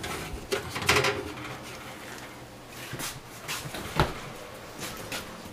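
Metal baking pan scraping and clanking as it is slid off a wire oven rack, followed by a few scattered sharp knocks as it is handled and carried.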